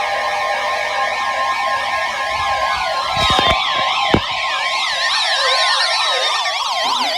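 Several siren tones layered together, each sweeping quickly up and down about two to three times a second over a bed of steady tones. About two and a half seconds in, a long falling tone joins them, and two short clicks sound near the middle.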